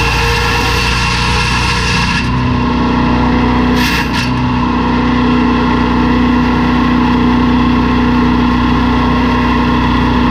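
A LANDWORKS wood chipper's 7 HP gasoline engine running steadily at fast throttle; about two seconds in its note changes and settles into a strong, even hum, with a short rasping burst about four seconds in.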